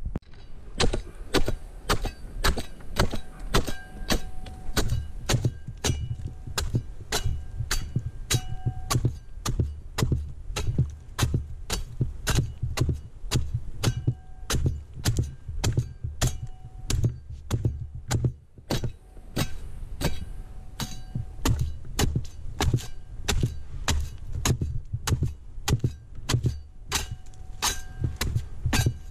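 A corvellón palm-pruning blade hacking into the fronds and frond bases of a Canary Island date palm in a steady run of strikes, about two a second. Many strikes leave a short metallic ring.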